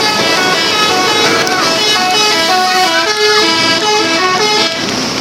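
Tour bus telolet horn, a multi-tone musical air horn, playing a quick melody of stepped notes; it stops shortly before the end.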